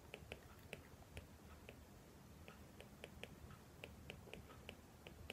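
Faint stylus clicks on a tablet screen during handwriting, about three a second at uneven spacing, over near silence.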